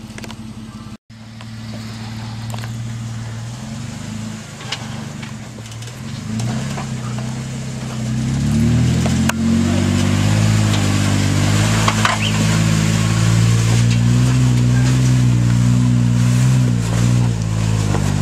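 Jeep Wrangler's engine revving under heavy load as it crawls up a steep slickrock climb, its pitch stepping up and down with the throttle. It grows louder about eight seconds in.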